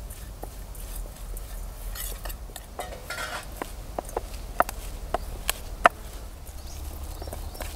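A spoon and then hands mix chopped coriander and spices in a stainless steel bowl, with soft scraping and rustling. A run of sharp metallic clinks against the bowl falls about four to six seconds in.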